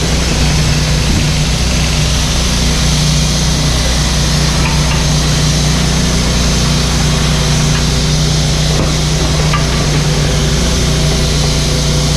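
Mini excavator's diesel engine running at a steady speed, with a few faint clicks over it.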